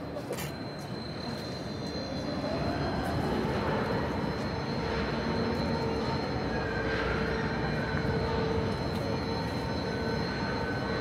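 Overhead crane travelling with a suspended locomotive body: its electric drive runs with a whine that rises in pitch about two to three seconds in and then holds steady over a broad running noise that grows louder.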